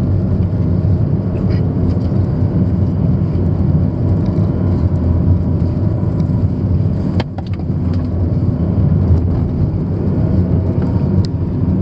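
Car driving at steady speed, heard from inside the cabin: a loud, steady low rumble of engine and tyre noise. A single sharp click about seven seconds in.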